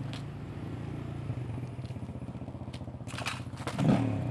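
An engine idling steadily in the background, with a low, even, pulsing hum. Near the end comes a brief rustle of handling noise and a louder bump as the rider takes hold of the dirt bike's handlebar.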